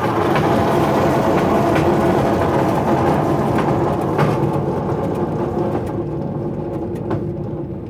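1929 Ford Model A pickup's four-cylinder engine running with the drivetrain turning, making a heck of a racket with sharp clicks through it. The owner suspects the running gear's rear end, possibly a damaged spider gear. The noise dies away over the last few seconds.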